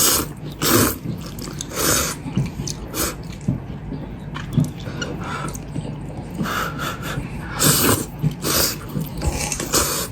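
A person slurping hot and sour sweet-potato noodles and their soup: a series of short, noisy slurps about a second apart, thinning out in the middle.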